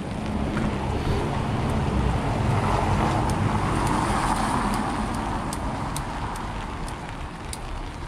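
A road vehicle passing on a wet street: a low engine rumble and tyre hiss that swell over a couple of seconds and then fade away.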